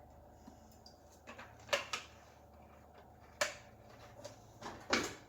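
A few light clicks and knocks of kitchen handling, spaced out over a few seconds against a quiet background.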